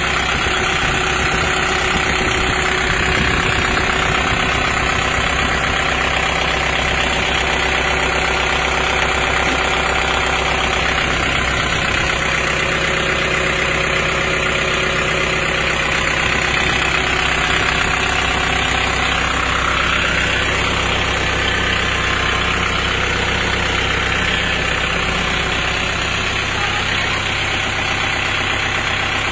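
Kubota M6040 tractor's diesel engine idling steadily.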